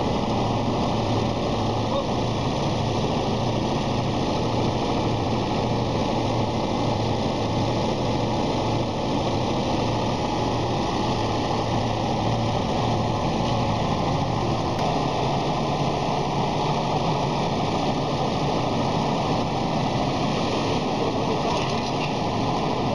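Truck-mounted crane's engine running steadily as the crane holds and lifts the ship's mast, a constant low hum with no pauses.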